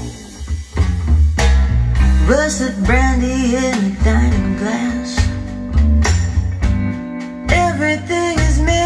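Recorded music played through a pair of SUPERMON bookshelf loudspeakers: a slow blues-jazz song with a deep bass line that shifts from note to note, plucked guitar and bending melody notes.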